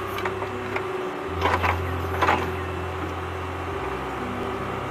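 Small electric motor of a DIY toy tractor running steadily with a hum, with a few short knocks and rattles about a second and a half and two seconds in.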